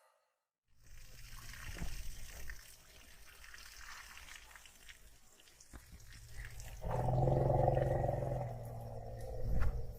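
Elephant giving a loud, low rumbling roar for about a second and a half, starting about seven seconds in, over uneven outdoor noise. A short loud bump comes near the end.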